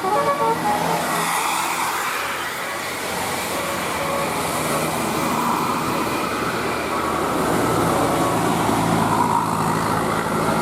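A musical multi-tone telolet bus horn cuts off in the first half-second, followed by a bus engine running and tyre noise as it passes on the road; a deeper engine drone builds after about seven seconds.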